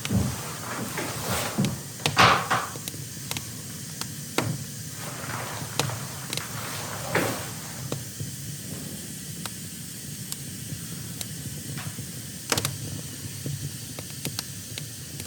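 Scattered knocks, clicks and a few short scrapes of objects being handled, loudest about two seconds in, over a steady low background noise.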